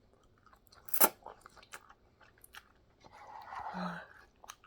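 Close mouth noises of someone eating: chewing, with one sharp crunching click about a second in, a few small clicks, and a soft breathy rustle a little after three seconds.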